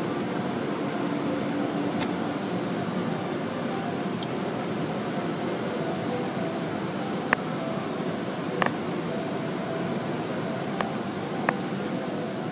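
Car wash air dryers blowing steadily, heard from inside the car, with a few short clicks now and then.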